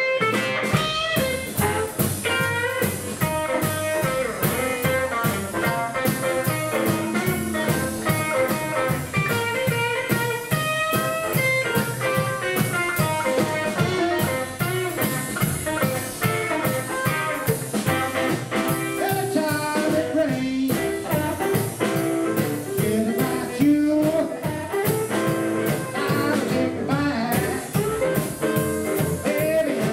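A live blues band playing: harmonica, acoustic guitar, upright double bass and drum kit, with a steady beat.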